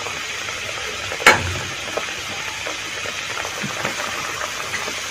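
Pan of tomatoes, garlic and green chillies in water bubbling on the heat, a steady hiss, with one sharp knock about a second in.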